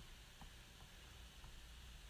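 Near silence: a faint steady hiss and low hum of room tone, with a couple of very faint ticks.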